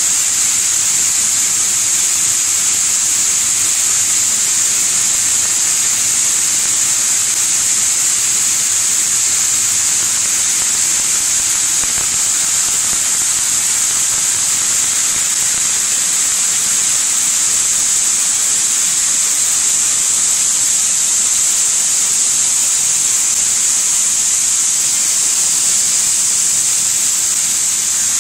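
A high-capacity wheat cleaning machine running, with a steady high hiss that holds without change.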